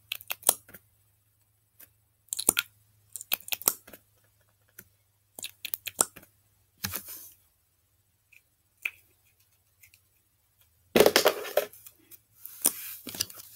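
Sharp clicks, taps and short scrapes of small plastic craft tools and containers being handled over slime, with a louder, longer rustling scrape about eleven seconds in and another near the end.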